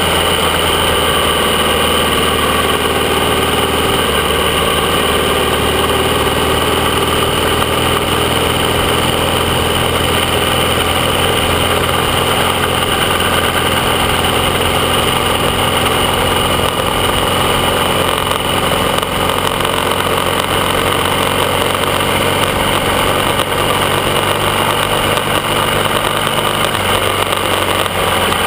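AJS 650 CSR parallel-twin motorcycle engine running steadily under way at cruising speed. The engine note shifts slightly about four seconds in and again near the end.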